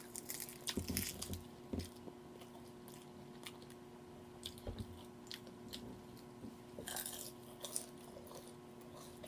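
Close-up chewing and crunching of crispy fried chicken, with a cluster of crunchy bites in the first two seconds and another about seven seconds in.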